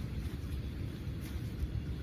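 Steady low rumbling noise with no distinct knocks or splashes.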